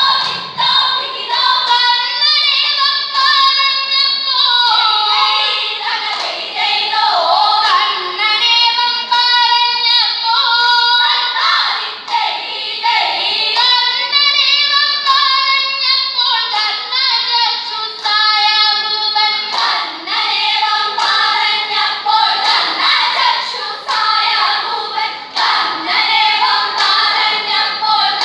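A group of schoolgirls singing a vanchipattu, the Kerala boat song, together in sung phrases, with sharp hand claps marking the rhythm.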